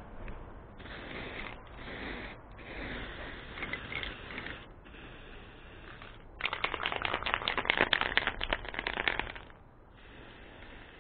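Aerosol spray paint can hissing in several short bursts with brief pauses. About six seconds in comes a louder rattling of rapid clicks for about three seconds, the can being shaken with its mixing ball knocking inside.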